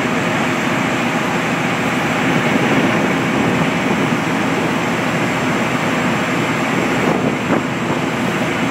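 Steady, loud noise of a boat under way: engine drone mixed with the rush of water churned up in its wake.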